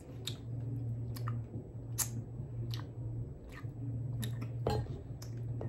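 A person chewing a jelly bean, with scattered irregular mouth clicks and smacks over a steady low hum.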